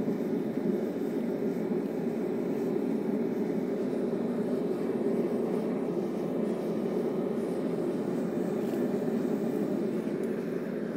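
Gas forge burners running with a steady, even rushing noise.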